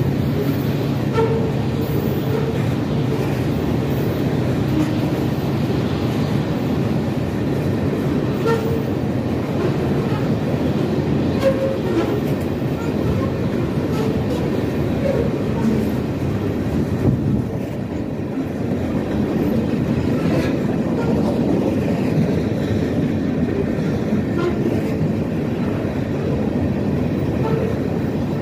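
A freight train's open-top aggregate cars rolling steadily past: a continuous rumble of steel wheels on rail with the clickety-clack of wheels crossing rail joints.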